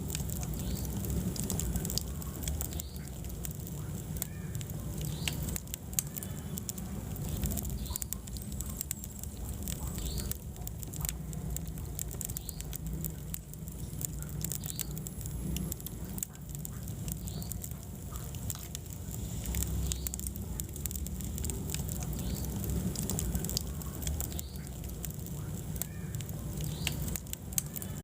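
Wood fire in a fireplace crackling, with many small sharp pops and snaps over a steady low rumble of the flames.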